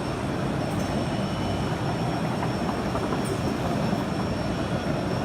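Steady roar of a busy machine-tool exhibition hall: running machinery, ventilation and crowd noise blended into one drone, with faint steady high-pitched tones over it.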